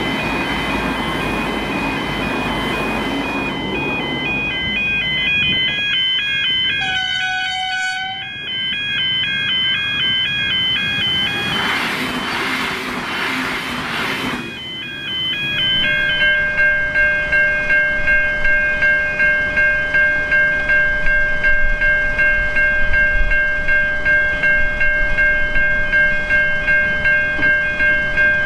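V/Line VLocity diesel multiple units running past a level crossing while the crossing bells ring in a steady repeating pattern. A short train horn sounds about seven seconds in, and a train rushes past around twelve to fourteen seconds. After that the crossing bells ring on alone.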